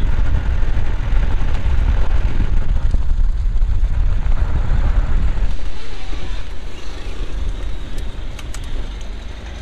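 Car on the road: a steady rumble of engine and tyre noise that grows quieter over the last few seconds.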